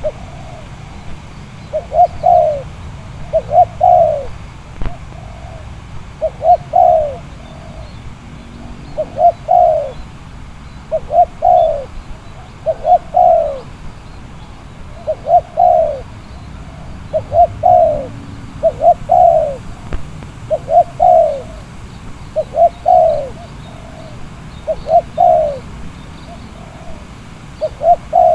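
Spotted dove cooing over and over: a short call of a few notes about every one and a half to two seconds. A low rumble of wind on the microphone runs underneath.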